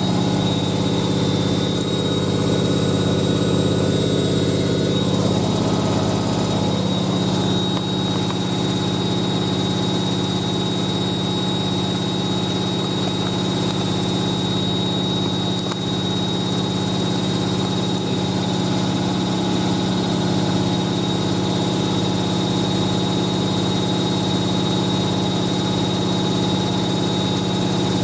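Hoover A3060 Electronic 1100 front-loading washing machine in a fast spin: a steady motor hum and drum rumble with a high, constant whine.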